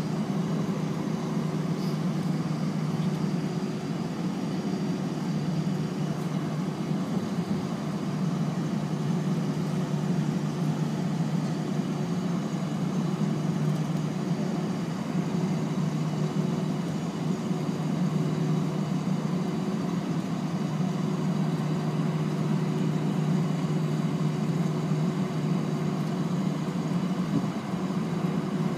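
Inside the cabin of an Airbus A320 taxiing: the idling jet engines and cabin air make a steady low hum, with a faint steady tone above it.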